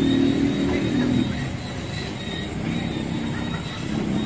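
A motor vehicle's engine running, a steady low hum that drops back about a second in and comes up again near the end.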